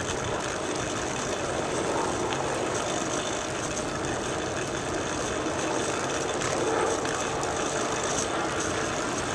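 Turner recumbent bicycle rolling along a paved path, heard from a camera mounted on the bike: a steady rush of wind and rolling noise.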